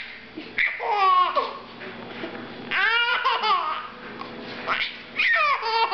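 Baby laughing in three bursts of high-pitched laughter, with short pauses between them.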